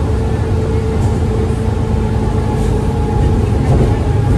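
Engine and drivetrain of an Alexander Dennis Enviro400 (E40D) double-decker bus running under way, heard from inside the passenger saloon: a steady, loud low rumble with a held whine over it, getting a little louder near the end.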